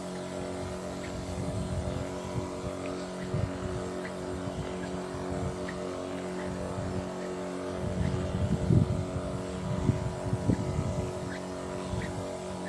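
A motor running steadily with a constant hum, joined by bursts of low rumble from about eight seconds in.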